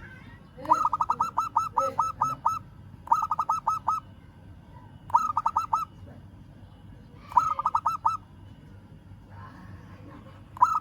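Zebra dove (perkutut) cooing in four bursts of quick, evenly spaced staccato notes, the first burst longest, with a fifth starting near the end: its call to a rival.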